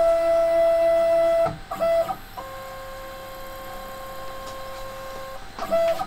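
Stepper motors of a home-built CNC router whining at a steady pitch as the machine homes its axes. The whine breaks off about a second and a half in, then carries on lower and quieter, the slower approach of the homing move. A brief louder burst of the higher whine comes near the end.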